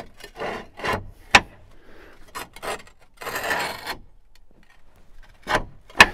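Roof tiles scraping and clacking against each other as a cut tile is worked into place over a roof hook: two rasping scrapes, with a sharp clack a little over a second in and two more near the end.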